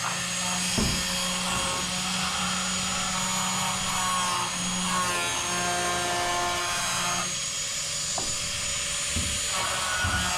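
Angle grinder running as it cuts metal roof flashing, a steady drone that shifts slightly in pitch as the disc takes load, with a few light knocks of the sheet metal.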